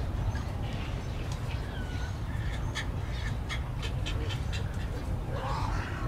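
Birds calling in a nesting colony: a short gliding call, then a quick run of sharp clicks, and another call near the end, over a steady low rumble.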